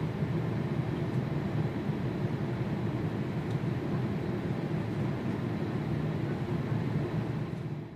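Steady low rumble of jet airliner engines heard at a distance, even in level throughout.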